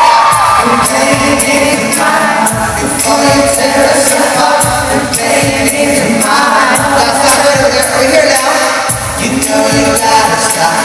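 Live pop vocal group singing in harmony over a band with a steady drum beat, recorded at a sound check.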